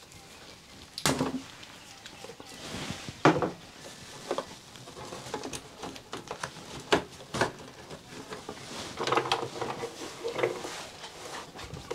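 Handling noise as electrical wires are pushed and tucked up into the sheet-metal ceiling box of an RV air conditioner: scattered clicks and knocks with rustling.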